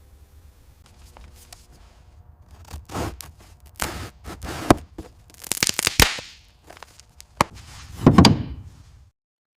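A series of knocks, clicks and scrapes of hands-on work, with a heavy thunk about eight seconds in, then the sound cuts off suddenly.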